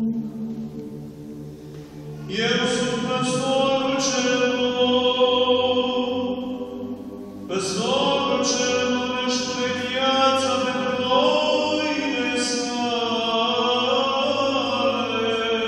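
An Orthodox deacon chanting the Gospel reading in a single male voice, with long held and gliding notes. He breathes briefly and starts new phrases about two seconds in and again at about seven and a half seconds.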